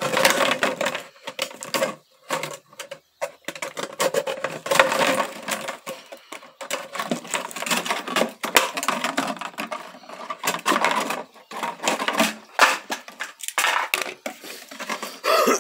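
Thin plastic water jug crackling and clicking as a utility knife cuts into it and hands flex and grip it, irregular and close, with a few short pauses.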